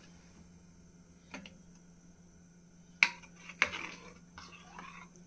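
Steel ladle clinking and scraping against a stainless steel pan as thick kadhi is stirred: a few scattered knocks, the sharpest about three seconds in, over a faint steady hum.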